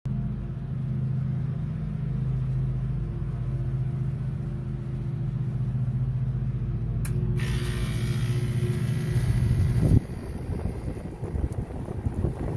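A 2002 Carrier central air conditioner's outdoor unit starting up: a loud, steady low compressor hum, then a sharp click about seven seconds in, followed by the rushing air of the GE condenser fan motor. The low hum drops off suddenly near ten seconds, leaving an uneven rushing noise.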